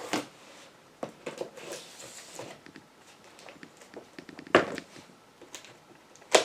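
A shipped package being handled and opened by hand, with scattered rustling and small clicks. Two loud, sharp knocks or snaps come about four and a half seconds in and again near the end.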